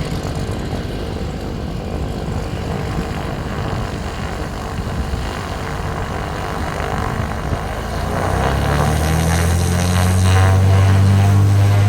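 Aircraft engine noise that grows louder about eight seconds in, when a strong low drone sets in with a sweeping, phasing sound above it as the aircraft comes closer.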